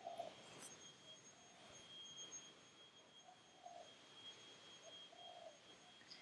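Near silence: quiet room tone with a faint steady high-pitched tone and a few faint short low notes every second or so.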